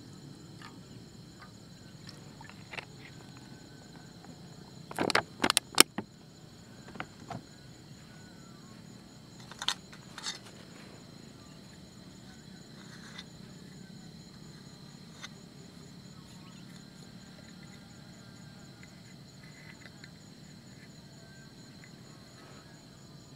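Steady high insect chorus with a fine pulsing trill throughout. Over it come sharp knocks and clicks from camp gear being handled: a loud cluster of four about five seconds in, two more near ten seconds, and scattered small taps.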